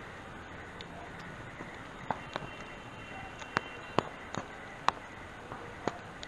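A steady outdoor background hiss with about seven sharp, irregular clicks or taps, most of them in the second half.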